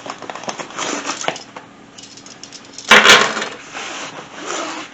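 Small plastic and metal accessories being handled and rummaged through: a run of light clicks, clinks and rustling, with a louder clatter about three seconds in.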